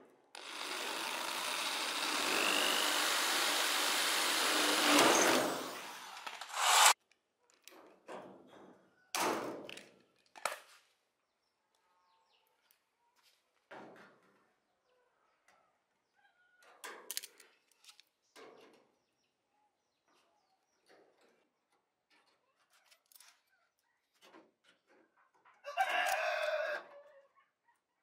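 Cordless drill boring into the rusted metal rim of a washing machine tub for about six seconds, followed by scattered short clicks and snips of tin snips cutting the rim trim. A rooster crows briefly near the end.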